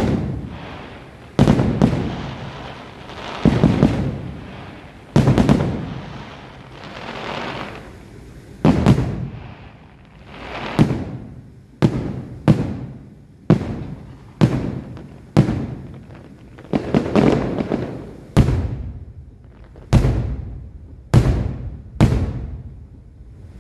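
Aerial fireworks shells bursting, about fifteen booms at uneven intervals, some in quick pairs, each trailing off in a rolling echo.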